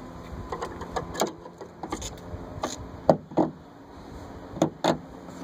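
Clicks and knocks of a 2001 Buick Regal's trunk lift strut being fitted back onto its mounting brackets. Scattered light clicks are followed by two pairs of louder clunks, one about three seconds in and one near the end.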